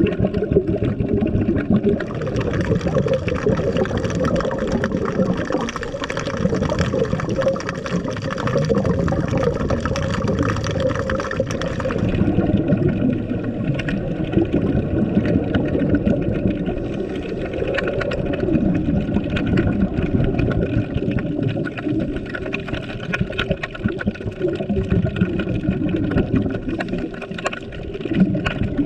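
Underwater sound heard through the camera: a dense, muffled rush of water with constant crackling, and a faint steady whine above it that thins out about twelve seconds in.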